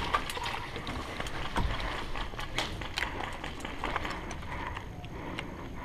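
Footsteps of a player walking across the field, a scatter of irregular taps and crunches.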